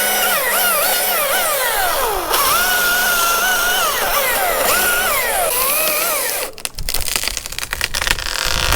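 Battery chainsaw cutting through a limb: its high motor whine repeatedly drops in pitch as it loads up in the wood and climbs back. The whine stops after about six and a half seconds, and a burst of cracking and rustling follows.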